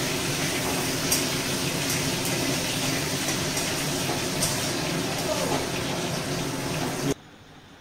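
Bay leaves and dried red chillies sizzling in hot mustard oil in an aluminium kadai, with a metal spatula stirring and clicking against the pan a few times. The sizzle cuts off abruptly near the end.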